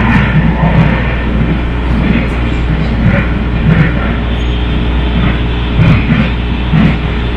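MARTA rail car running at speed, heard from inside the car. A steady low rumble and rolling noise, with low knocks about once a second and a couple of sharper clicks.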